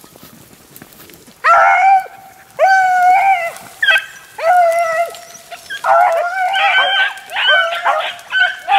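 Pack of beagles baying on a rabbit's track. Long drawn-out bawls come about a second apart starting a second and a half in, and several dogs join in overlapping from about six seconds in.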